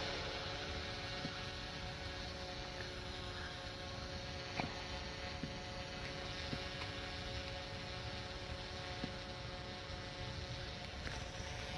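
DJI Mavic 2 Zoom quadcopter's propellers giving a steady, even hum, with low wind rumble and a few faint clicks.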